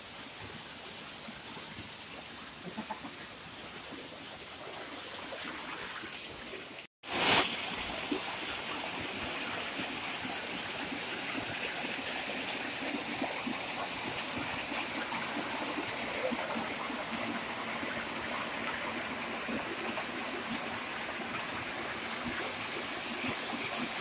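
Small rocky waterfall: water rushing and splashing down over boulders in a steady, even hiss. After a brief break about seven seconds in, the rushing is louder and closer.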